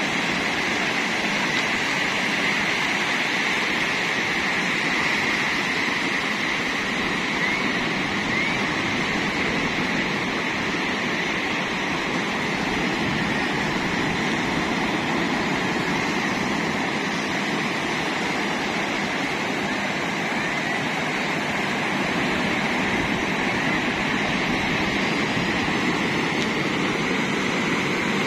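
Sea surf breaking and washing up a sandy beach, a steady rush of waves with no let-up.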